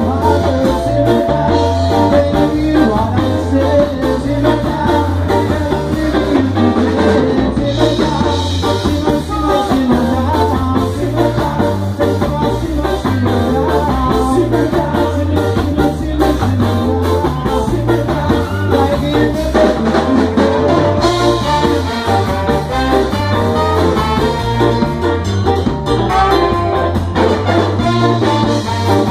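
Live ska band playing loudly with a steady beat: a horn section of saxophones, trumpet and trombone over keyboard, electric guitar and drums.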